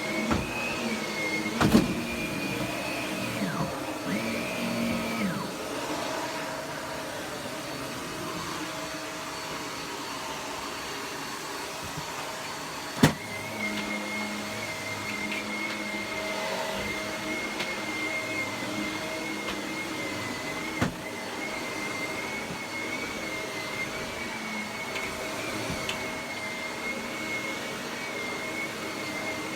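Vacuum cleaner running steadily with a high motor whine, its pitch wavering for the first few seconds. One sharp knock about halfway through.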